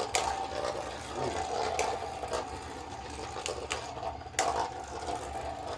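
Beyblade spinning tops whirring steadily in the stadium, with several sharp clacks as they collide. The loudest hit comes near the end.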